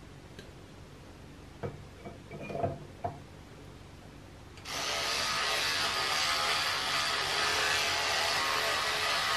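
A few light clicks and knocks of things handled at a bathroom sink. Then, about four and a half seconds in, an electric toothbrush starts buzzing steadily while teeth are brushed.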